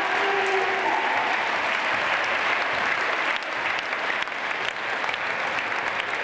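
Crowd applause: many people clapping together, with a short dip in level about three seconds in.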